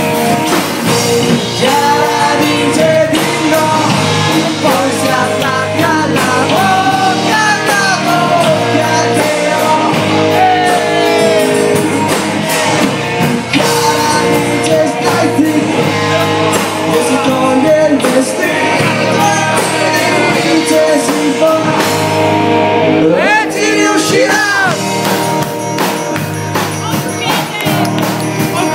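Live rock band playing loud: a singer with electric and acoustic guitars and a drum kit.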